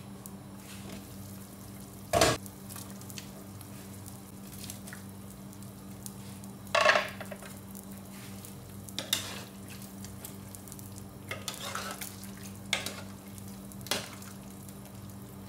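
Pot of chicken soup bubbling on the stove while a spoon or ladle knocks against the pot several times as it is stirred. The loudest knocks come about two and seven seconds in. A steady low hum runs underneath.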